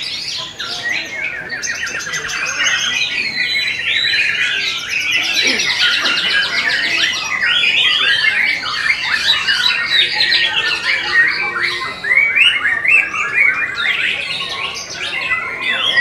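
White-rumped shama (murai batu) singing: a long, unbroken stream of rapid, varied chirps, trills and harsh chattering notes, growing denser after the first few seconds.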